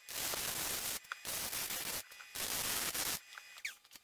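Wire-feed welder arcing on steel angle iron in three short bursts of steady hiss, each under a second long with brief pauses between. The arc stops about three seconds in.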